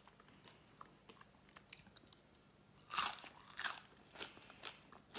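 Crispy potato waffle being bitten and chewed: a sharp crunch about three seconds in, a second one just after, then a few smaller crunches.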